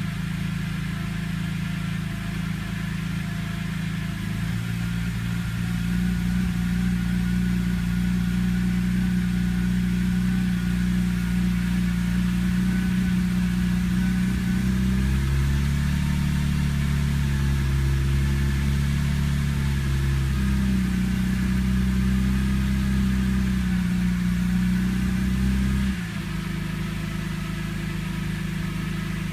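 Car engine idling roughly in the first minutes after a start. Its note shifts several times and then drops suddenly and gets quieter about 26 seconds in.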